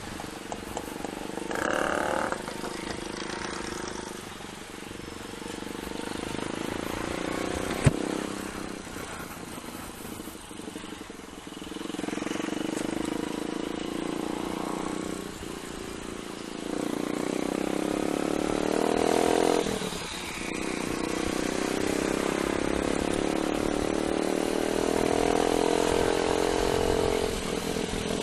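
Rusi KR125 motorcycle engine running while being ridden, its note climbing with acceleration and dropping back at gear changes, over a steady rush of wind. A single sharp click comes about eight seconds in.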